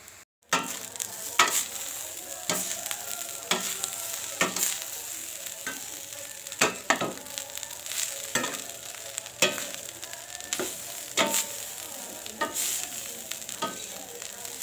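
Metal spatula scraping across a wok while grated coconut is stirred and dry-toasted, about one scrape a second over a steady hiss from the hot pan.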